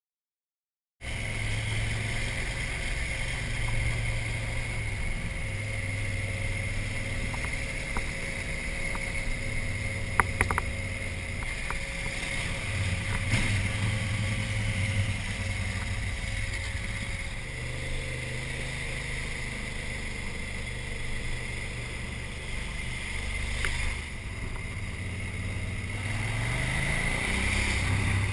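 Motorcycle engine running at road speed, heard from a camera mounted on the bike, mixed with wind noise and a steady high whine. It comes in about a second in, a few sharp clicks sound about ten seconds in, and near the end the engine note rises as the bike accelerates.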